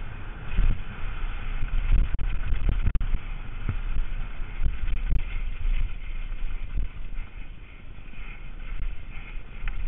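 Wind buffeting a helmet-mounted camera's microphone on a fast downhill mountain-bike descent, with a steady deep rumble and repeated knocks and rattles as the bike's tyres and frame hit rocks and bumps.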